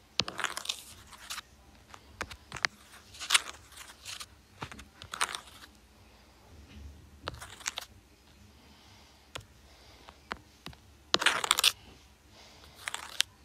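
Fingers tapping and swiping on a tablet's glass screen, picked up by the tablet's own microphone: irregular sharp taps and short scratchy rubs.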